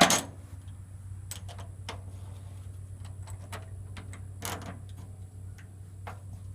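A loud sharp knock as the reassembled hydraulic cylinder or a tool is set down, then scattered lighter clicks and knocks of parts and tools being handled, over a steady low hum.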